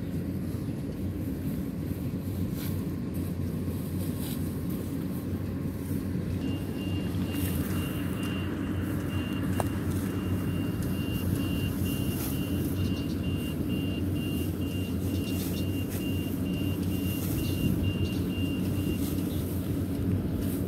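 Yanmar YH850 combine harvester's diesel engine running steadily, a continuous low drone.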